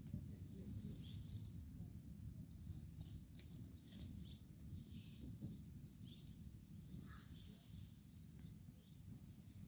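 Near silence: quiet outdoor ambience with a faint low rumble, scattered faint clicks and a brief faint chirp about seven seconds in.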